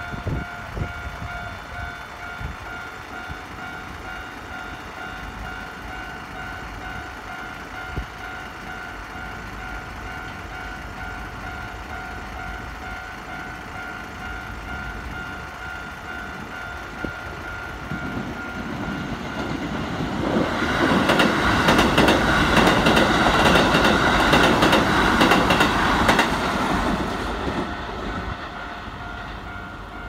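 Level-crossing warning alarm ringing in a steady repeated two-tone pulse. About two-thirds of the way in, a Keikyu 1000-series electric train runs past over the crossing, its wheels clattering over the rail joints. It grows loud for several seconds, then fades away near the end while the alarm keeps ringing.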